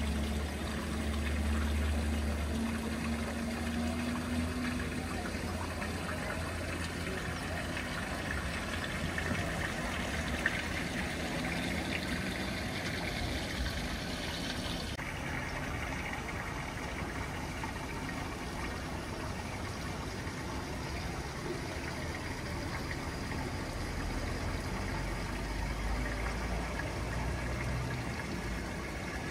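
Water trickling and running steadily over a shallow reflecting-pool fountain, with a low engine hum from idling buses at the start and again near the end.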